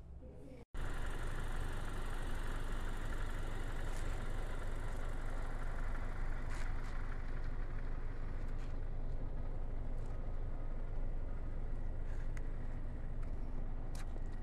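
Steady outdoor noise with a low rumble, cutting in suddenly about a second in, with a few faint ticks scattered through it.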